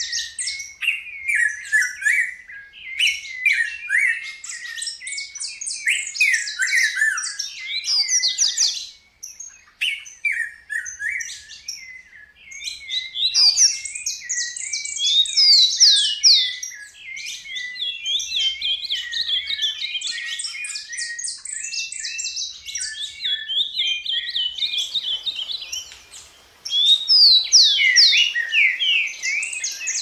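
Several Brazilian wild songbirds singing over one another in a dense chorus of fast chirps, whistles and trills. There is a brief lull about nine seconds in, and the singing grows louder again a few seconds before the end.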